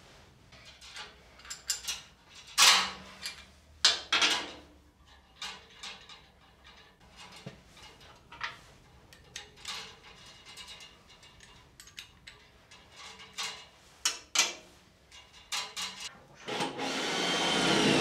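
Scattered knocks, clicks and scrapes of tools and metal parts being handled while brake lines are fitted, then near the end a power tool runs for about two seconds, rising in level.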